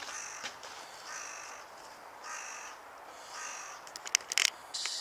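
A bird calling four times, each call about half a second long and about a second apart, followed near the end by a few sharp clicks.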